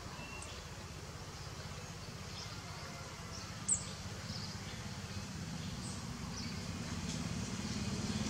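Outdoor ambience: a low, steady engine rumble that grows louder toward the end, with scattered faint high chirps and one sharp click a little under four seconds in.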